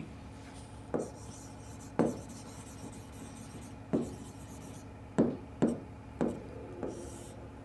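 A marker writing on a whiteboard: about seven short, sharp taps as the tip strikes the board, with faint scratching in between.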